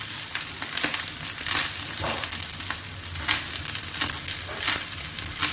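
Fried rice being stirred in a stainless steel wok with a wooden spatula: repeated scrapes of the spatula against the pan, about two a second, over a steady sizzle of frying.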